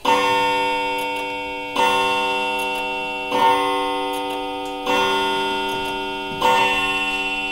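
A chiming clock striking five times, about a second and a half apart. Each stroke is a bell tone that rings on and slowly fades into the next.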